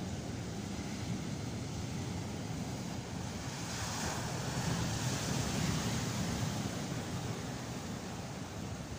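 Sea surf breaking and washing up a sand and pebble beach, a steady rush of water that swells as a wave comes in about four seconds in.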